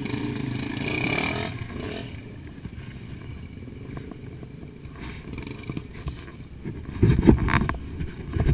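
Yamaha TT-R trail motorcycle's single-cylinder four-stroke engine running as the bike passes and fades off up the dirt trail, leaving a faint low engine rumble. Near the end come a few loud low thumps.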